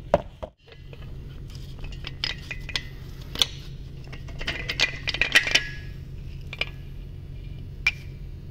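Steel engine internals, a piston and connecting rod from a Toyota 2AR-FE, clinking and tapping against metal as they are handled and pulled from the engine block. There is a sharp click at the start, a busy run of clinks in the middle, and a steady low hum underneath.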